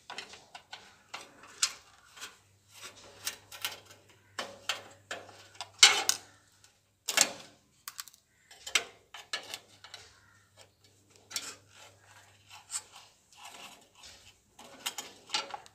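Screwdriver undoing the mounting screws of a gas geyser's lighter (ignition) kit box: irregular metal clicks, scrapes and rattles, the sharpest about six and seven seconds in.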